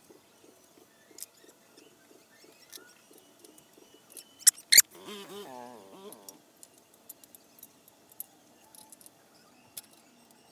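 Hand-tightening of the M6 stainless steel bolts that fix a NEMA 34 servo motor to its steel mount, heard as light metallic clicks and ticks: a quick run of soft clicks at the start, two sharp loud clicks about halfway, then a short wavering squeak.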